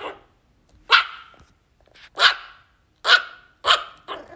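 A dog barking: four sharp single barks spaced about a second apart, each cut off short. These are the barks of a dog that is stuck up somewhere and can't come down.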